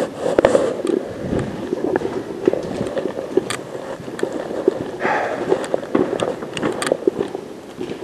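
Footsteps of someone walking, with irregular sharp clicks, knocks and scuffs close to the microphone.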